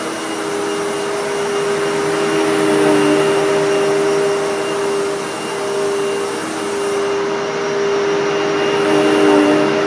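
Hoover Tempo Widepath bagged upright vacuum cleaner running steadily with a motor whine, its brush roll set to medium pile and working over carpet. The pitch dips slightly twice.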